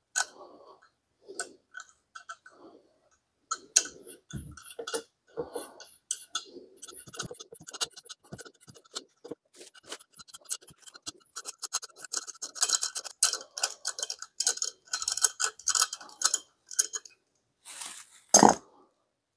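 Hand tap being turned in a threaded screw hole of a cast-iron vise jaw to chase the threads, giving small clicks and scrapes that grow quicker and denser in the second half. One loud knock near the end.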